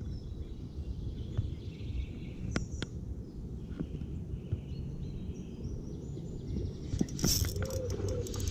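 Outdoor background noise: a steady low rumble with faint bird chirps and scattered clicks. About seven seconds in comes a louder burst of noise with quick clicks.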